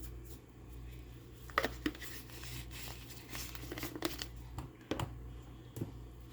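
Seasoning containers being handled and shaken over raw chicken: scattered small clicks and short rustles, with a steady low hum underneath.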